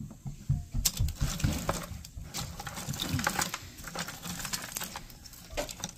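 A hand rummaging through a plastic bucket of scrap circuit boards, connectors and wires: a dense clatter of small pieces clicking and rattling against each other, with a few soft low thumps in the first second.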